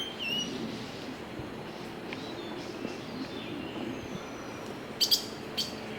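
Small songbirds chirping and tweeting, with whistled notes that glide in pitch at the start and a few sharp, high chirps about five seconds in.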